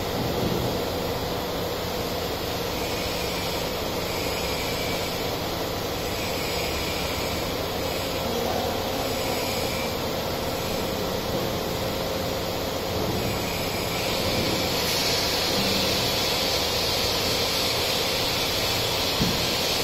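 Hydraulic scissor lift table lowering: a steady mechanical hum and hiss that gets a little louder and brighter about three-quarters of the way through as the table nears the bottom.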